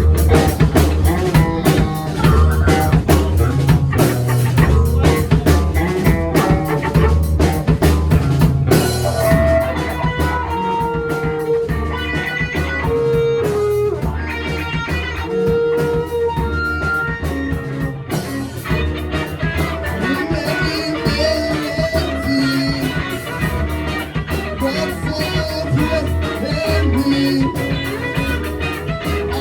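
Live rock band playing: drums, bass and electric guitar. The band comes in sharply at the start with dense drumming, and after about nine seconds sustained guitar notes ring out over the rhythm.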